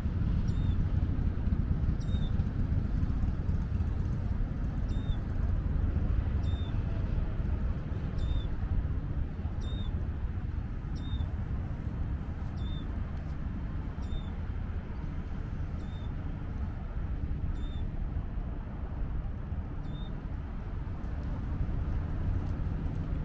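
A short, high squeak repeats irregularly about once every one to two seconds over a steady low rumble, and stops near the end.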